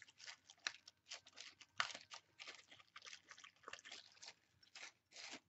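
Plastic packaging crinkling and rustling in the hands in a quick, irregular run of crackles as a small boxed part is unwrapped.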